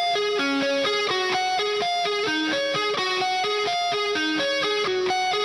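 Background music: a guitar picking a quick melody of single plucked notes at an even loudness.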